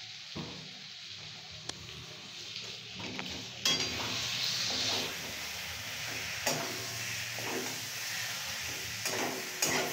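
Potatoes frying and sizzling in oil in a steel kadai, while a steel spatula stirs them and scrapes and clicks against the pan. The sizzling jumps up nearly four seconds in, as the stirring begins.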